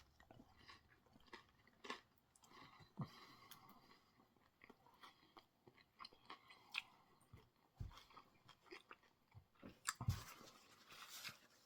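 A person quietly biting and chewing a crispy fried chicken sandwich with coleslaw: soft crunches and wet mouth clicks, with a louder run of crunching about ten seconds in.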